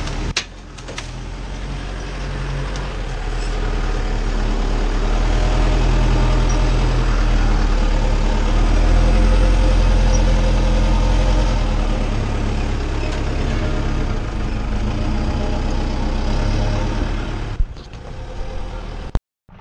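Off-road 4x4's engine running under load as the vehicle crawls over rough ground, heard from close under the chassis; it grows louder through the middle and eases off near the end. A few sharp knocks come right at the start and one more near the end.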